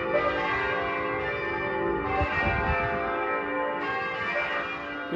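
Church bells ringing, with three fresh strokes about two seconds apart, each ringing on into the next.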